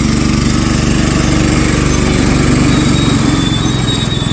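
Small engine of a ride-on miniature railway locomotive running steadily under load as it pulls its wagons past at close range.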